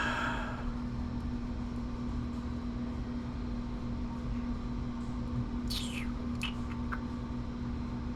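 Steady low hum with background room noise, and a couple of faint light clicks about six seconds in.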